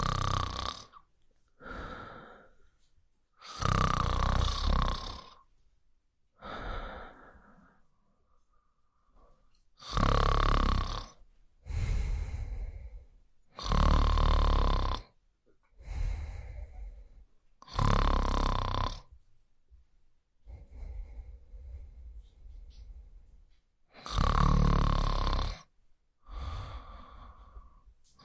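Snoring in a steady rhythm: a loud snore about every four seconds, each followed by a softer, shorter one, with a lull of a few seconds about two-thirds of the way through.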